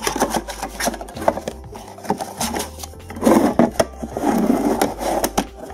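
Hard plastic VCR video cassette storage box being handled: clicks and knocks of the box and its clear lid, with rubbing and scraping of plastic and paper against cardboard, longer scrapes about three and a half and four and a half seconds in.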